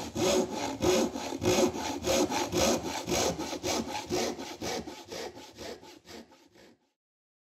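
Hand saw cutting through wood in quick, even back-and-forth strokes, about four or five a second, growing fainter and stopping shortly before the end.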